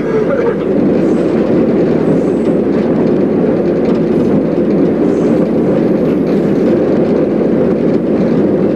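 Pennsylvania Railroad E8 diesel locomotive under way, heard from inside its cab: a loud, steady drone of the running engines and the wheels on the rails.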